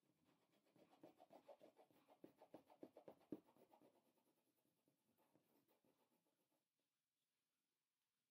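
Yellow wax crayon colouring on a sheet of paper pinned to a board: faint, rapid back-and-forth strokes, several a second, that stop about two-thirds of the way through.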